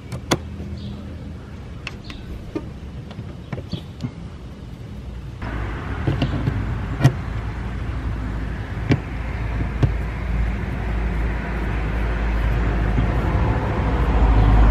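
Plastic push-pin fasteners being pressed into a Mustang's plastic cowl panel and turned with a screwdriver: scattered sharp clicks and taps. About five seconds in, a steady low rumble comes in abruptly and grows louder toward the end.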